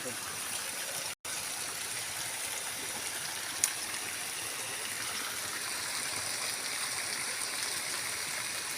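Steady rush of flowing water from a stream. It cuts out for an instant about a second in, and a single sharp click sounds a few seconds in.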